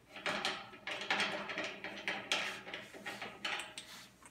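A string of short scraping strokes, about three a second: plastic knobs being twisted off the threaded bolts on the honey extractor's frame.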